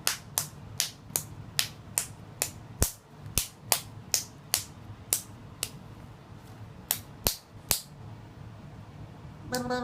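A baby's rhythmic sharp smacks, about two or three a second, thinning out and stopping about eight seconds in. Right at the end a pitched vocal sound begins.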